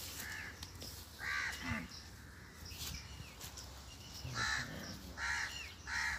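Crows cawing: a few short caws early on, then a run of three in the last two seconds.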